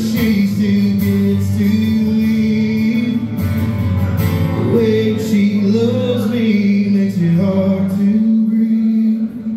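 Acoustic guitar strummed in a steady rhythm with long held sung notes over it: a live solo song performance.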